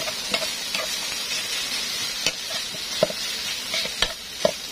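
Rice sizzling as it is stir-fried in a non-stick pan, with a steady frying hiss and several sharp knocks of the stirring utensil against the pan.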